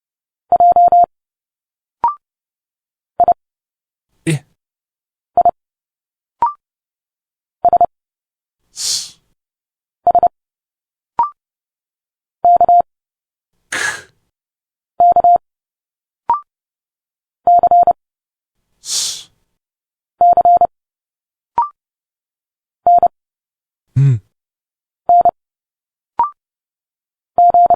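Morse code letters sent at 30 words per minute: short groups of beeps on one steady mid-pitched tone, with a brief higher blip between some groups. About every five seconds comes a short spoken letter sound, mostly a hiss like 'sss' or 'sh', once a low hum.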